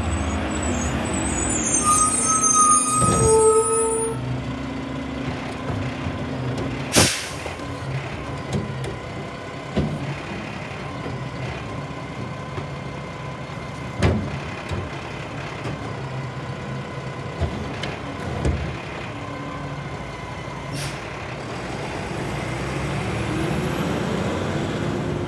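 Mack LR garbage truck stopping at the curb with a squeal and hiss of its air brakes, its engine then running steadily as the Heil Curotto-Can arm grabs a trash cart and tips it into the can. Several sharp bangs come from the cart and arm, the loudest about a third of the way in and again near the middle.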